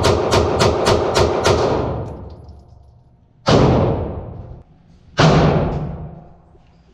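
9mm Glock 19 pistol fired in rapid succession from a 33-round extended magazine, about three shots a second, the string stopping about a second and a half in. Two more single gunshots follow a couple of seconds apart, each with a long echoing tail.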